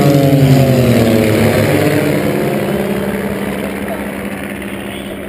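Three propeller aircraft flying past together in formation. Their engine drone drops in pitch as they go by, is loudest about half a second in, then fades away.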